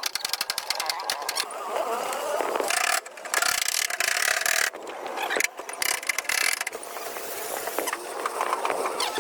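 Repair-shop tool work: rapid, even mechanical clicking like a ratchet for about the first second and a half, then several bursts of hissing noise with short gaps between them.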